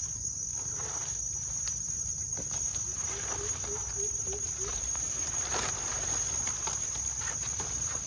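Steady high-pitched drone of insects in the forest, with scattered rustling steps in leaf litter. Past the middle, a short run of about seven low chirps, roughly four a second.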